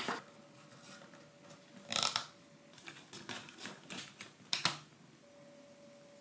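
Small wooden puzzle-kit pieces being handled and pressed together, giving a run of light clicks and taps. They are loudest about two seconds in, with several more up to about five seconds, then stop.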